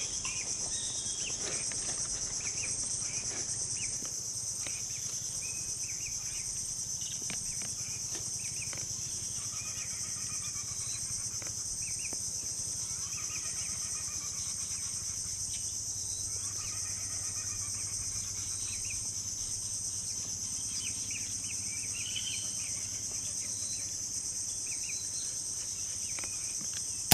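Steady, high-pitched drone of an insect chorus, with scattered short bird chirps and calls over it.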